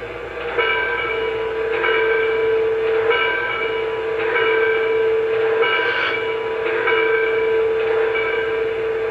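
Lionel Big Boy model steam locomotive's onboard sound system playing standing sounds while the engine sits still. A steady tone runs over hissing pulses that come about once a second.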